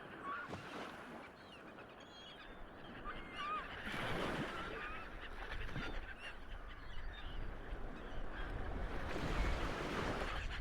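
Birds calling: short, scattered chirping calls over a steady background hiss.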